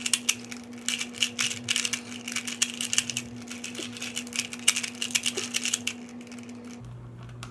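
Rubik's Cube being scrambled by hand: rapid clicking and rattling of its plastic layers turning, which thins out and stops about six seconds in.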